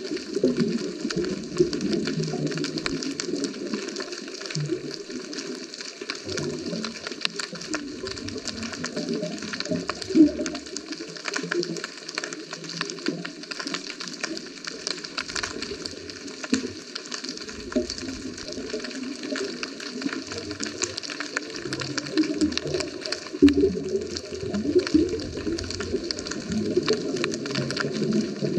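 Muffled underwater sound heard through a GoPro housing on a scuba dive: water rushing and bubbling in surges every few seconds, over a constant fine crackling.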